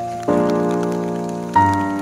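Slow, soft piano music, with two chords struck about a second and a quarter apart, each left to ring and fade, over a light patter of rain.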